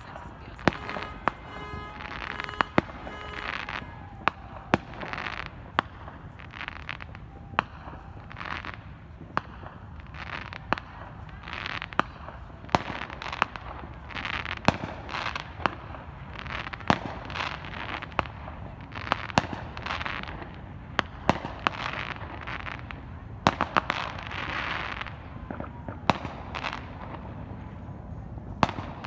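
Consumer fireworks going off: many sharp bangs at irregular intervals, some in quick succession, mixed with short hissing bursts of about half a second each.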